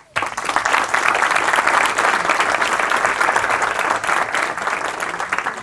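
Audience applauding, many hands clapping at once; it starts suddenly and eases off a little near the end.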